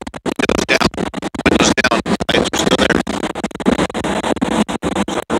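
Loud wind and road noise rushing in through an open car window at highway speed, buffeting the microphone so the sound comes in choppy gusts with brief dropouts.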